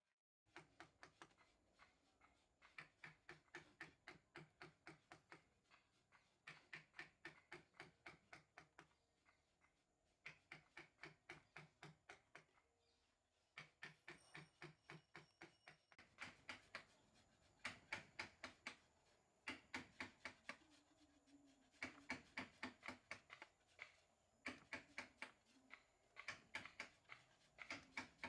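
Mallet tapping a carving chisel into solid wood in quick runs of light strikes, about four to five a second, with brief pauses between runs.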